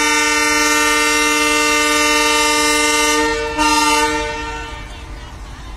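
Multi-tone air horn of a WDG-3A diesel locomotive, sounded as the train departs: one long blast that breaks off a little after three seconds in, then a short second blast that fades out by about five seconds.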